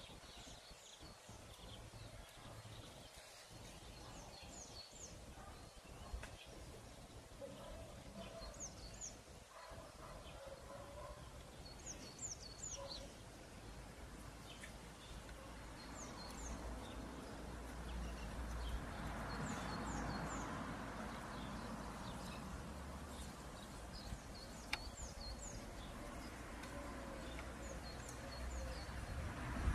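Garden ambience: small birds chirping in short, high notes scattered throughout, over a low rush of wind that swells in the middle.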